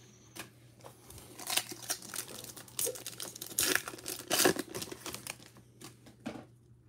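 Foil trading card pack torn open by hand, its wrapper crinkling in a run of irregular crackles and rips, loudest about a second and a half, three and a half and four and a half seconds in.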